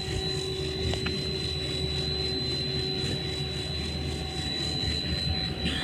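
Snack pellet processing line machinery running, with a sheet of dough passing through its forming rollers and cutters: a steady mechanical drone with a constant high-pitched whine over it.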